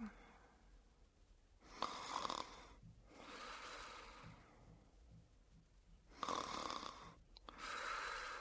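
A woman snoring: two snores about four seconds apart, each a loud snore that starts sharply, followed by a longer, softer breath out.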